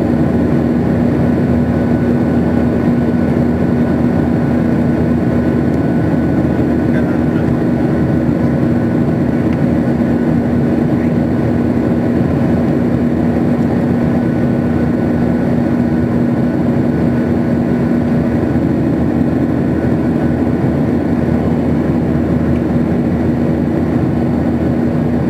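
Boeing 737 cabin noise in flight: the turbofan engines and airflow make an even rushing drone with a steady low hum running under it.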